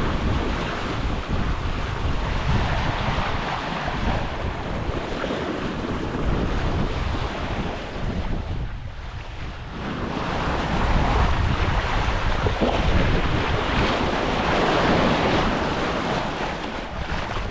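Wind buffeting the microphone over waves washing around a sailing yacht at sea: a steady rushing noise with a short lull about nine seconds in.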